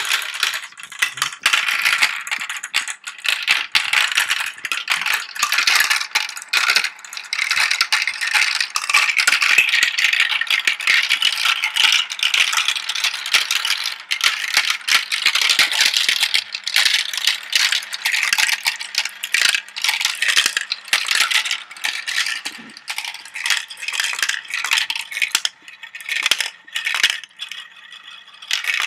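Glass marbles rolling and clattering down a plastic marble run's tracks, spirals and funnels: a dense, continuous rattle of small clicks that thins out into sparser clicks near the end as the marbles drop into the collecting tray.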